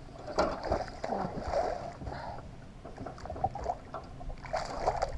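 Water slapping and lapping against a fishing boat's hull, with scattered small knocks and clicks on deck.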